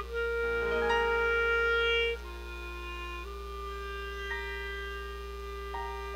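Clarinet playing a slow melody of long held notes: a loud sustained note over the first two seconds, then softer held notes at a lower pitch.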